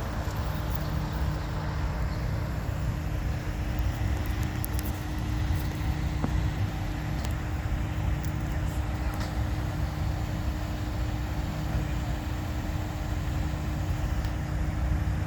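Steady low vehicle rumble with a constant hum through it, as of a car's engine and road noise.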